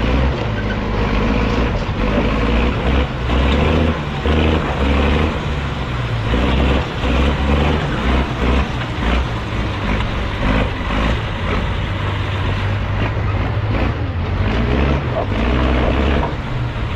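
Toyota pickup crawling over rocks: the engine runs at low speed, its rumble surging and dropping unevenly, with scattered knocks and clunks.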